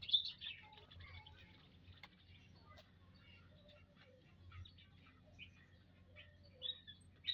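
A flock of munias (emprit birds) chirping in an aviary: many short, high calls overlapping at random, a little louder right at the start and near the end.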